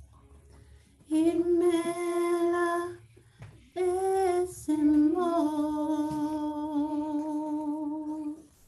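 A woman humming a slow worship melody in three long held notes, the last held for about four seconds with a slight waver.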